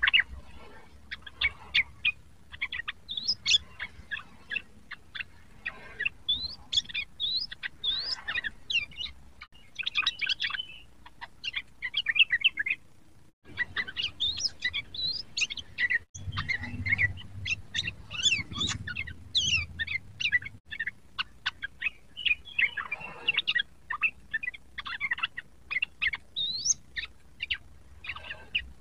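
Yellow-vented bulbul (trucukan) singing a rapid, continuous chattering song of quick chirps and fluting notes, in phrases broken by brief pauses.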